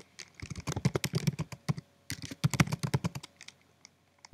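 Fast typing on a computer keyboard: two quick runs of keystrokes, each about a second or so long, with a short break between them and a longer pause near the end.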